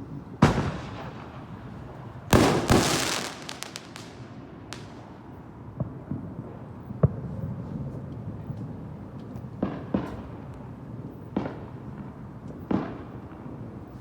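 Fireworks exploding. There is a loud bang about half a second in and a louder cluster of bangs with rapid crackling around two and a half seconds in. Smaller scattered bangs follow every second or two, each trailing off in a rumbling echo.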